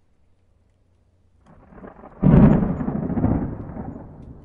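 Intro logo sound effect: a low rumble swells into a sudden deep boom a little past two seconds in, which then slowly dies away.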